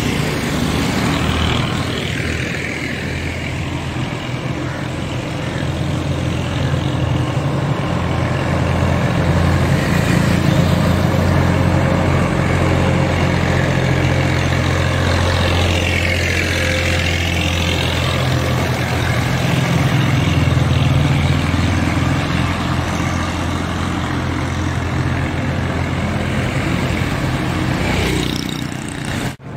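Road traffic on a wet road: running engines with tyre hiss, and one vehicle passing close about halfway through. A sudden brief dropout near the end.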